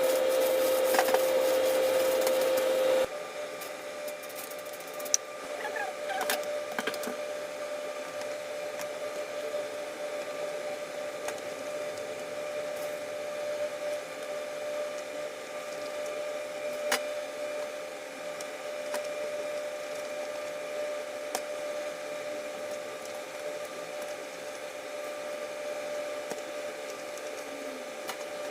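Steady whirring hum of a kitchen appliance fan, like a range hood, with a few light clicks and taps of kitchen utensils. It is louder for the first few seconds, then settles to a lower steady level.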